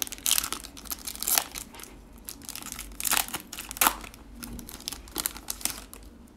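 Foil wrapper of a basketball trading card pack being torn open and crinkled by hand, a run of irregular crackling rustles.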